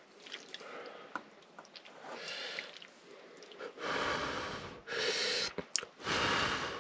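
Faint clinks of a stainless ladle and bowl as stew is served, then three short rushes of breath-like noise about a second apart in the second half.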